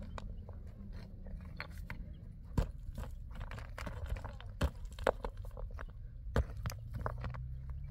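Footsteps crunching over loose stony ground and stones clicking and knocking together as rocks are handled, a few sharp knocks standing out, over a low steady rumble.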